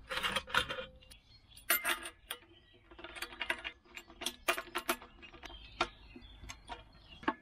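Irregular metallic clicks, clinks and scraping as the screw cap of an old metal hot-water bottle, used as a ukulele body, is turned and the wooden neck is twisted and pushed into the body to extend it.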